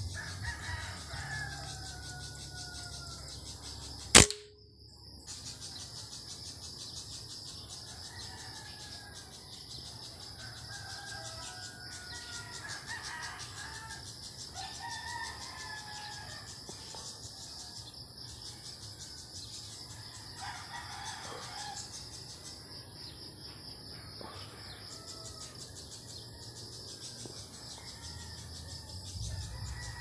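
A single sharp air rifle shot about four seconds in. Around it, birds are calling, roosters crow, and a steady high insect drone runs underneath.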